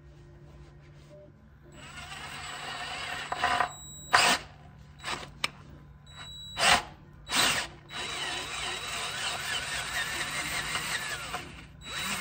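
Cordless drill with a 31/64-inch bit cutting out the stripped threads of an aluminium oil pan's drain hole. It goes in several runs: one starting about two seconds in, a few short bursts, then a longer steady run from about eight seconds until just before the end, when the bit is through.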